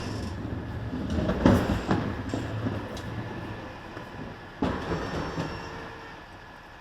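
Steady low rumble of a moving rail vehicle, with loud clanks about a second and a half in and again near five seconds, fading toward the end.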